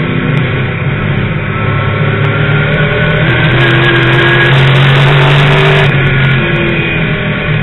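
Late model stock car's V8 engine running hard at racing speed, heard from inside the cockpit. It swells louder through the middle and eases off about six seconds in.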